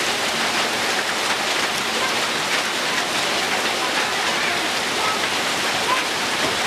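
Heavy rain pouring steadily onto a grass lawn, a dense even hiss.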